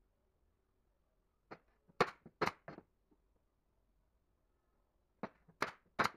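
Sharp wooden clacks and knocks in two quick runs of about four, from a frame of small wooden sticks being worked on a tabletop.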